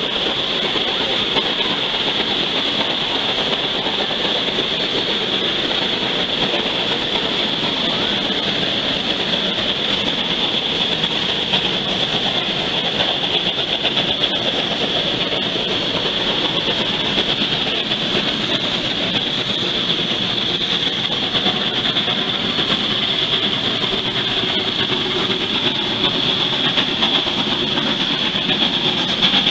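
Shay geared steam locomotive working on the line: a steady, dense rumble of exhaust and running gear under a steady high-pitched hiss.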